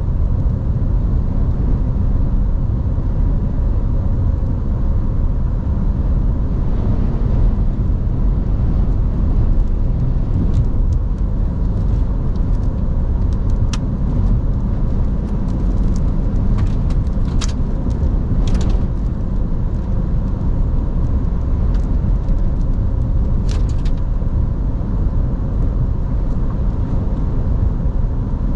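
A car driving in strong storm wind, heard from inside the car: a steady low rumble of road and wind noise, with a few scattered sharp ticks in the middle.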